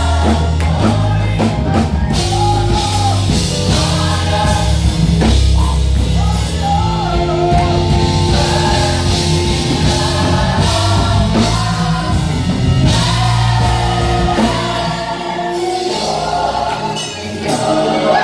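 Gospel choir singing in full harmony with a live band, bass and drums underneath.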